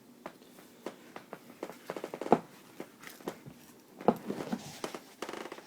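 Handling noise: a string of irregular clicks, knocks and rustles, with two louder thumps about two and four seconds in.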